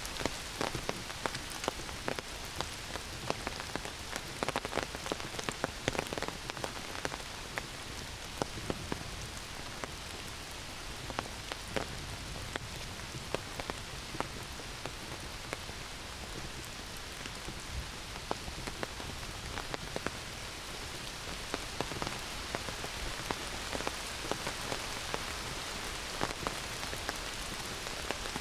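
Heavy summer rain pouring down in a forest: a steady hiss of rain on leaves and ground, with many sharp, close individual drop hits.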